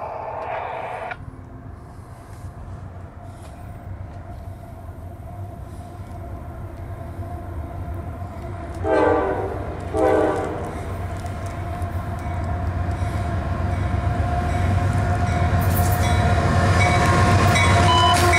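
CSX GE diesel freight locomotive sounding its air horn. One blast cuts off about a second in, then two short blasts come a second apart near the middle. The engine and the rumble of wheels on rail grow louder as the train draws near and passes.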